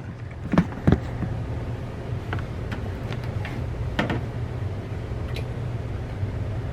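Hands working on the parts of a humidifier: a few scattered clicks and knocks, two close together near the start and another about four seconds in, over a steady low hum.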